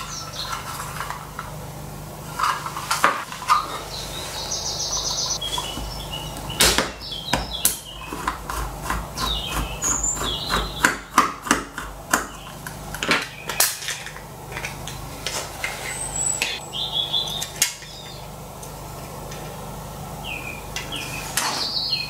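Irregular clicks, taps and knocks of a plastic optical computer mouse being taken apart by hand, a small screwdriver working its screws and the case pieces being handled and set down. Birds chirp now and then in the background.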